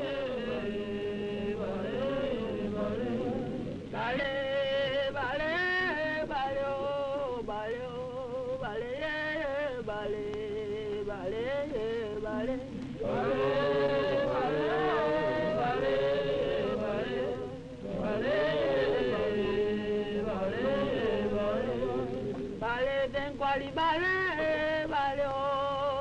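Soundtrack of chanted singing: voices in long, melodic phrases a few seconds each, with short breaks between them.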